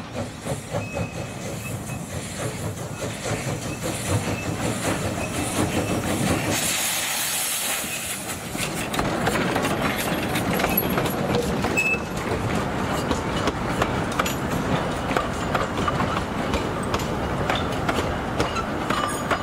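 Narrow-gauge steam locomotive Urskog (1895) chuffing as it comes past, with a loud hiss of steam about six seconds in. Then its carriages click and clatter over the rail joints as they roll by.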